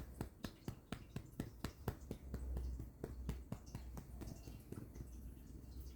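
A hand patting a cat in quick, light, even pats, about four a second, over a low steady hum.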